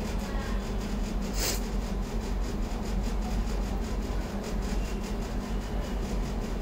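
Steady low mechanical hum and rumble of background machinery, with a brief rustling scrape about a second and a half in.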